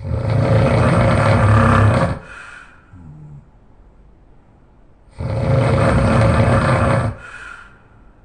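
A person snoring loudly: two long snores about five seconds apart, each lasting about two seconds and trailing off into a short, quieter breath.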